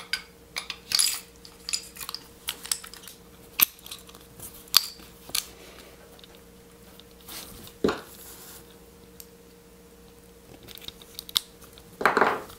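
Small metallic clicks and clinks from the steel slide, guide rod and recoil spring of a 1911 pistol being handled and fitted together during reassembly. The clicks come thick in the first few seconds and grow sparse after, with a longer, louder handling noise near the end.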